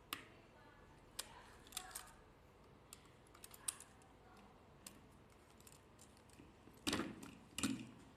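Scattered small clicks and taps of hardware being handled, with two louder clattering knocks near the end.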